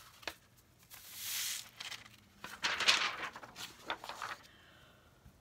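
Sheets of paper being slid and handled on a tabletop: a soft swish about a second in, then rustling with light taps around three seconds in.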